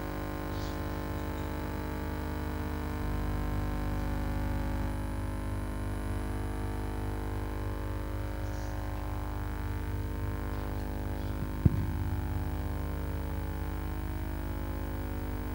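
Steady electrical mains hum and buzz from the sound system, with a single sharp click about twelve seconds in.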